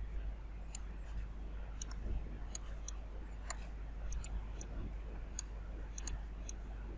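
Computer mouse clicking: about a dozen short, sharp clicks at an irregular pace over a faint steady low hum.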